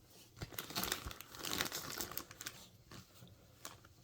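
Crinkling and rustling of packaging as clothes are handled, a dense run of small crackles for about three seconds, then a few separate clicks.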